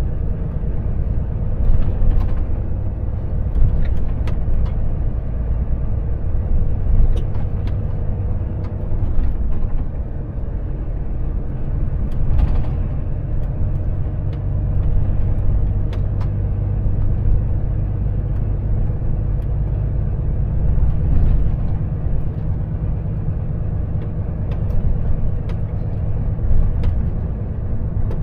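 Volvo FH truck driving at a steady pace: its diesel engine drones low under road noise, with scattered light knocks and rattles throughout.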